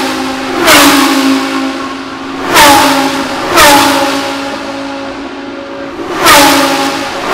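GT3 race cars, a Lamborghini Huracán GT3 with its 5.2-litre V10 among them, passing at full speed one after another. Four loud pass-bys come in quick succession, each swelling to a peak and then dropping sharply in pitch as the car goes by, leaving a steady engine note as it pulls away.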